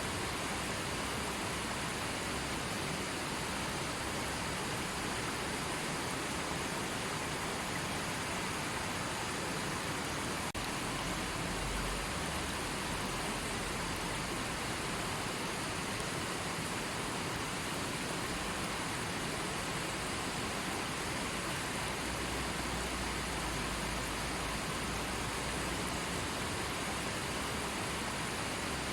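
River water rushing steadily: an even, unbroken hiss of flowing water.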